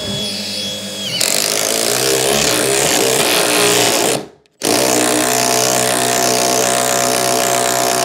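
Makita 18V cordless impact driver driving 4-inch screws down through the thermal break of an aluminium door sill, in two long runs with a short break about four seconds in. The first run starts as a steady whine and turns harsher about a second in, as the screw takes load.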